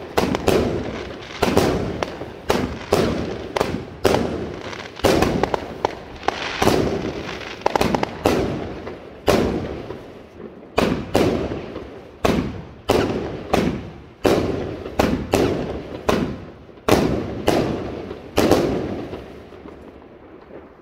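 A consumer fireworks cake, the Broekhoff Mayhem Mine & Blackstone with 25 mm tubes, firing shot after shot at about one and a half a second, each a sharp report that dies away quickly. The shots stop about two seconds before the end and the last bursts fade out.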